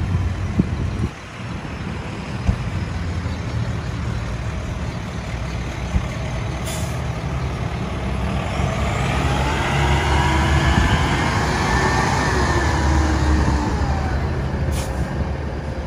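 Diesel engine of a 2012 Freightliner M2 106 grapple truck running as the truck drives slowly past. It gets louder as the truck turns toward and passes close by, with a whine that rises and then falls in pitch midway. There are two brief high hisses, one about seven seconds in and one near the end.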